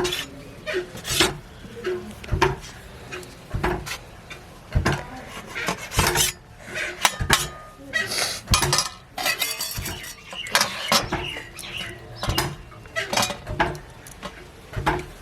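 Metal kitchen utensils clinking and knocking in short, irregular strikes, several a second at times.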